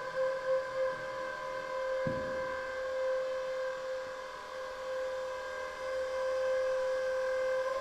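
Forklift running as it lifts a heavy pump, giving a steady whining tone; a dull thump about two seconds in.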